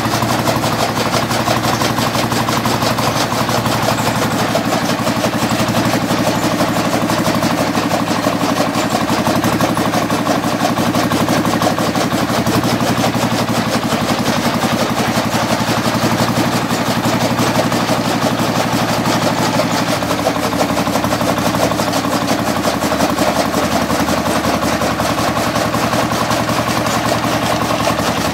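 14 hp stationary diesel engine running steadily under load, driving a chaff cutter whose flywheel blades chop green fodder; a fast, even mechanical clatter.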